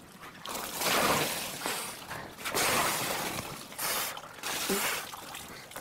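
Water sloshing out of a roof-mounted tank and splashing down through the sunroof onto the car's occupants, in several splashing surges.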